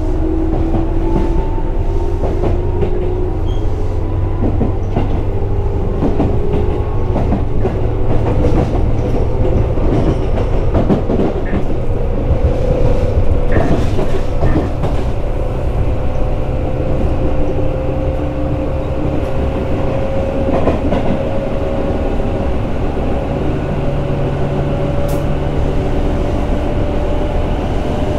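Tobu 8000 series electric train running, its traction motor and gear whine rising slowly in pitch as the train gains speed, over a steady low rumble with scattered clicks from the wheels and rail joints.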